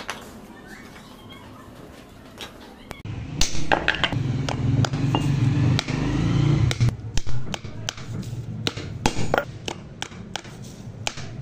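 Hand work on a coir-fibre brush with a wooden base: light, irregular taps and clicks as tufts are pressed and wired in. A louder low hum runs from about three to seven seconds in.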